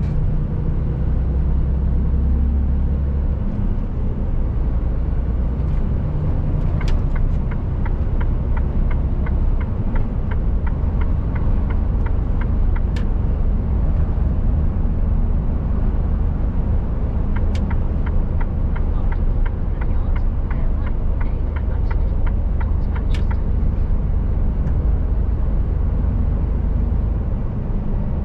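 Mercedes-Benz Actros truck under way, its engine running with a steady low drone. A regular ticking, about two to three a second, comes in twice for several seconds.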